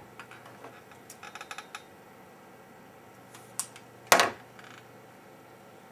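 Small hard objects being handled on a workbench: a few light clicks and a quick run of ticks, then one louder knock about four seconds in, over a faint low hum.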